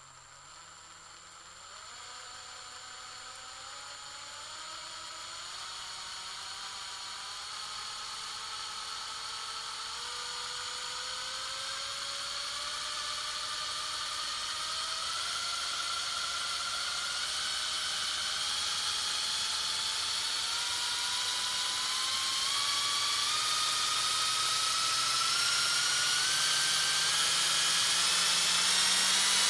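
Medium-sized electric drill motor running and slowly speeding up: a whine that rises steadily in pitch and grows louder.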